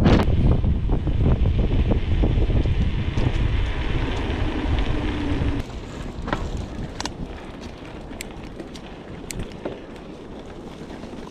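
Strong wind buffeting the microphone, loud for about the first five seconds and then dropping off sharply, with scattered light clicks and rattles in the quieter part.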